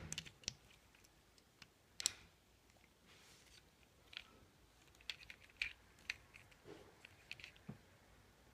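Hard plastic Lego Bionicle pieces clicking and tapping as they are handled and snapped together: faint, irregular clicks, the sharpest about two seconds in.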